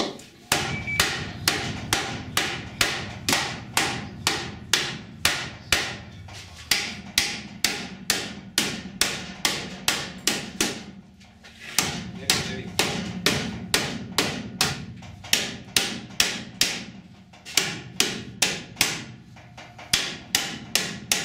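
Hammer blows on the sheet metal of an Audi's front inner wing beside the strut tower, about two to three strikes a second in runs with short breaks about eleven and seventeen seconds in. The blows are driving the bent panel and chassis rail back into shape.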